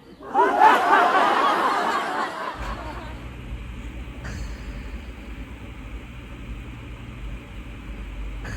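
A person laughing for about two seconds, then a steady low rumble with a faint hiss.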